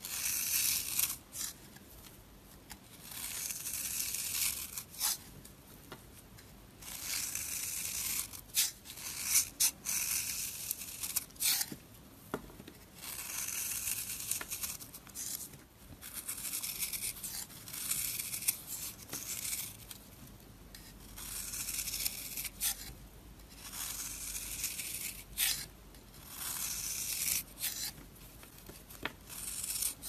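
A knife blade shaving thin layers off a bar of dry, crumbly soap, with a crunchy scraping sound. The strokes come over and over, each lasting a second or two with short pauses between them.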